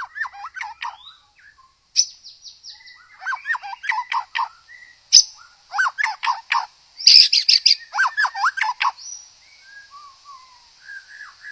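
White-rumped shama singing: a long, varied song of quick whistled notes and phrases that sweep up and down, broken by short gaps. A high thin note is held behind the phrases for a few seconds in the middle.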